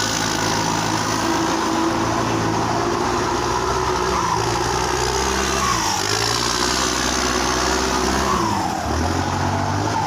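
Tractor diesel engines running under load while towing a tractor stuck in mud. The engine note shifts up and down and drops about nine seconds in.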